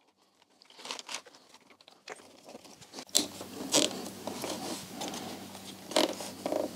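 Hands threading a wire and its plug through a gap between a motorcycle's plastic panels and wiring harness: scattered clicks, rustles and scrapes of cable and connector against plastic. A faint steady low hum comes in about three seconds in.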